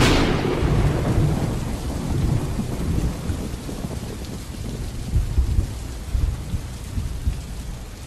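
A thunderclap breaks suddenly at the start and rolls on as a long low rumble, over steady rain.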